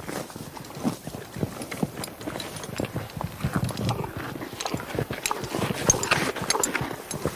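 A horse grazing, tearing and chewing grass in a dense run of irregular crunches and rips over low thuds.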